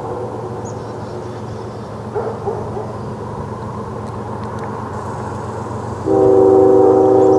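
Steady low rumble of the approaching train. About six seconds in, the lead locomotive's Nathan Airchime K5HL five-chime air horn sounds again, a loud held chord of several notes.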